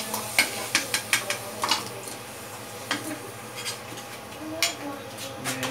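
Metal spatula clinking and scraping against a steel wok as fried potato pieces are lifted out of the hot oil: a quick run of sharp clicks in the first two seconds, then a few scattered knocks, over a faint sizzle of oil.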